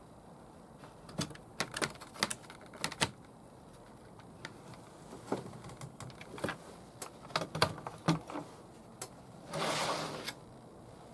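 Irregular small clicks and taps of parts and tools being handled, a few sharp ones standing out, with a brief scraping rustle about ten seconds in.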